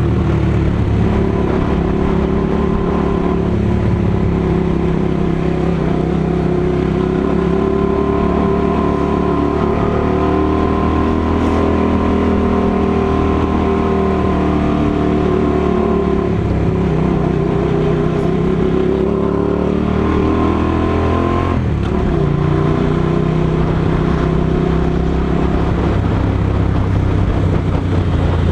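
Motorcycle engine running steadily under way, its pitch drifting up and down gently with the throttle. About three-quarters of the way through, the revs drop quickly, then hold steady again.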